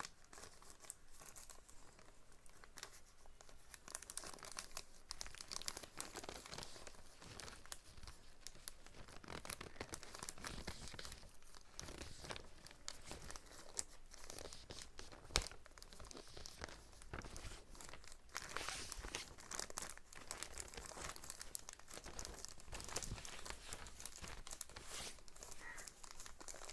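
Packaging cover rustling and crinkling as small hand tools are handled and put away, with scattered faint clicks and one sharper click about halfway through.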